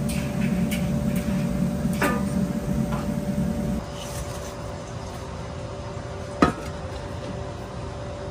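Kitchenware knocking: a few sharp clatters of dishes and utensils, the loudest about six seconds in, over a steady machine hum whose low rumble drops away about four seconds in.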